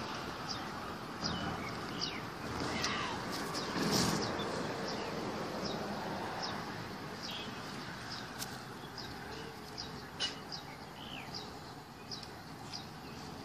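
Small birds chirping in short, repeated calls over a steady background of outdoor noise, with a louder sweep about four seconds in.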